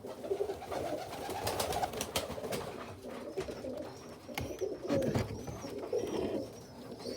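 Tumbler pigeons cooing in a loft, a continuous low wavering murmur, with scattered sharp clicks throughout.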